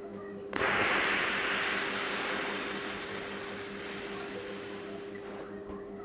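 A man's long, slow exhale through pursed lips: a breathy rush that starts about half a second in and fades gradually over about five seconds. It is the out-breath of a paced breathing exercise for asthma, breathing out for twice as long as the breath in through the nose.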